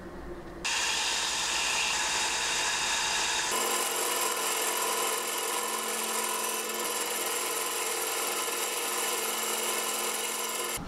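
Small benchtop power saw running and cutting a small resin block, a steady motor-and-blade noise that starts about a second in.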